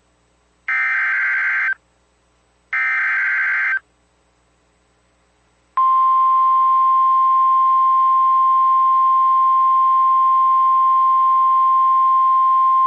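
NOAA Weather Radio Emergency Alert System tones. Two one-second screeches of the SAME digital header data come about a second apart. After about two seconds of silence, the steady single-pitch 1050 Hz warning alarm tone starts and holds. The tone announces a new warning.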